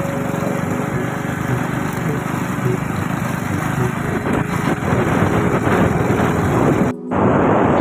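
Small motorcycle engine running while riding, mixed with wind rushing over the microphone. The sound cuts out for a moment near the end.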